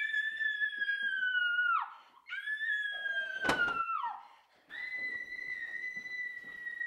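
A woman screaming: three long, shrill screams of about two seconds each, the first two sliding down in pitch as they end and the third held level. A sharp knock cuts through the middle of the second scream.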